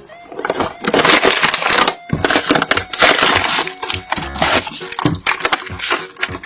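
A toy's crinkly packaging being torn and worked open by hand: dense, irregular crackling and rustling, with a short pause about two seconds in.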